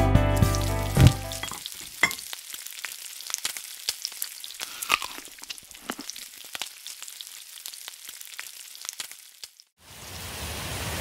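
Closing guitar music fades out in the first second and a half. Sparse crackling and sizzling follows, and a steady rushing hiss starts near the end.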